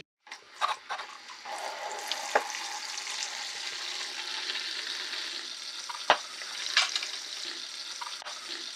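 Boiling water being poured off the cooked tripe: a steady hiss of running hot water, with a few sharp knocks of the pot.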